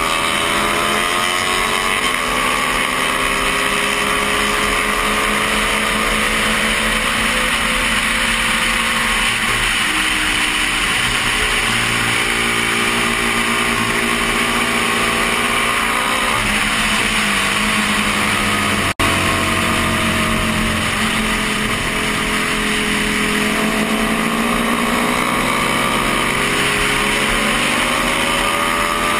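Stock 1972 Honda CB350's air-cooled parallel-twin engine under racing load, heard from the rider's helmet with heavy wind noise. The engine note climbs, drops with throttle changes and gear shifts, and climbs again several times.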